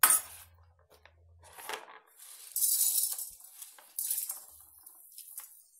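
Dried nagkesar buds poured from a bowl into a metal kadhai, rattling and scattering across the pan for about a second, with a smaller rattle just after. A sharp clink at the start.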